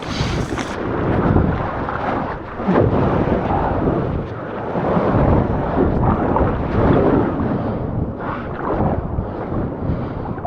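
Ocean waves breaking and exploding against a wall: a loud, continuous rumbling rush of whitewater that swells and eases over several seconds.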